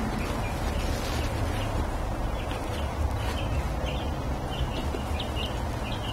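Steady low background rumble, with a run of short, high bird-like chirps from about two seconds in.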